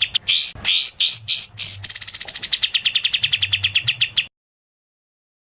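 Songbird singing a rapid-fire 'tembakan' trill, about ten sharp chirps a second, with a few rising whistled sweeps about half a second to two seconds in. It cuts off suddenly about four seconds in.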